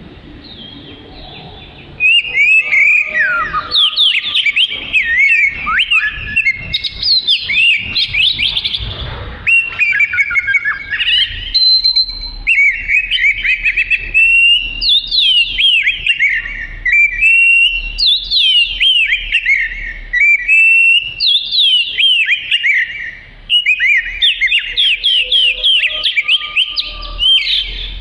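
Oriental magpie-robin (kacer) singing: loud, rapid phrases of sweeping whistled notes that start about two seconds in and go on with only brief pauses.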